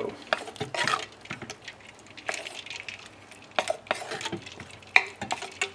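Wooden spoon stirring hot apple filling in a stainless steel saucepan set in an ice-water bath, with irregular scrapes, taps and clinks against the pan.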